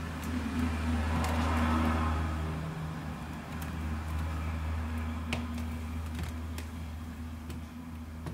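Small sharp plastic clicks and handling noises as a plastic dash cam is fitted to its suction-cup mount on the windshield, over a steady low hum.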